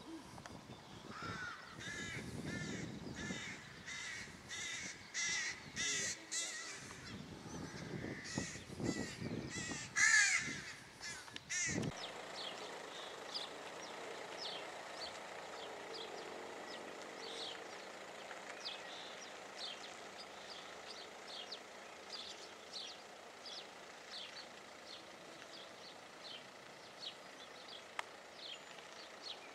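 Birds calling loudly and repeatedly with harsh, rapid calls for the first twelve seconds. After an abrupt change, a quieter run of short high chirps follows, about two a second.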